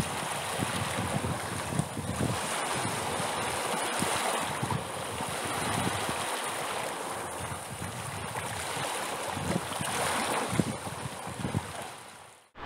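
Ocean surf: waves washing in and out in slow swells, laid in as a recorded sound track. It fades out just before the end.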